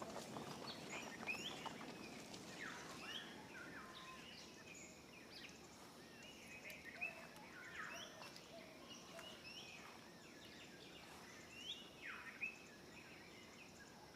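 Faint birdsong: many short chirps and brief whistled calls from several small birds, scattered throughout over a low steady background hiss.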